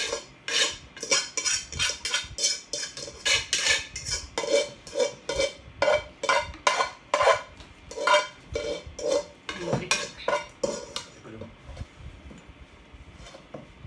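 Cutlery clinking and scraping against a dish in a quick run of strokes, about two a second, thinning out a few seconds before the end.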